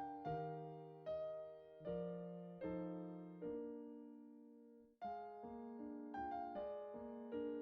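Background solo piano music, single notes struck one after another and left to fade. It breaks off briefly about five seconds in, then picks up again.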